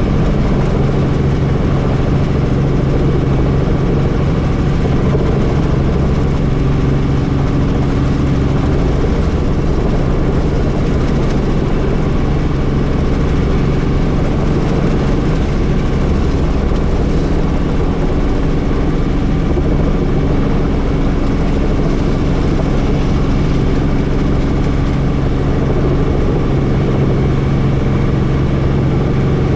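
Helicopter's engine and rotor running steadily, heard from on board, with a constant low hum over a wide rushing noise.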